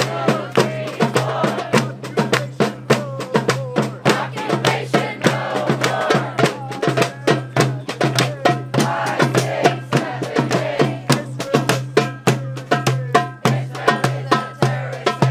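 A drum beaten in a fast, steady rhythm of about four sharp beats a second, with crowd voices chanting over it.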